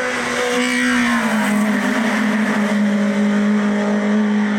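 Volkswagen Scirocco hill-climb race car's 1.6-litre four-cylinder engine running at high revs as it passes close by. Its pitch drops about a second in, then holds one steady note as it goes away.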